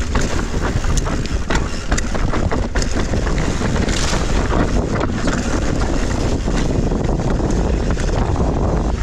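Wind buffeting the microphone, mixed with the steady rattle and frequent sharp knocks of a mountain bike riding fast over rough, rooty trail.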